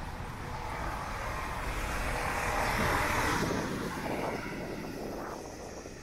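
A vehicle passing by: a rushing noise that swells to its loudest about three seconds in, then fades away.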